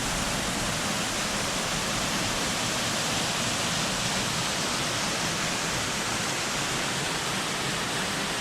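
Waterfall rushing steadily, the even roar of falling water.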